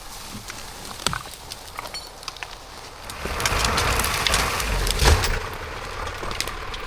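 Scattered cracks and snaps, then a louder rushing stretch about three seconds in that ends in a heavy thump, after which an engine idles steadily.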